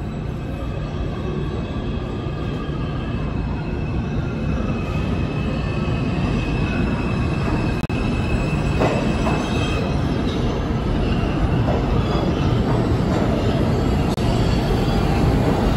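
New York City Subway M train of R160 cars pulling into an underground station: a steady rumble of wheels on the rails that grows louder as it approaches, with high squealing tones.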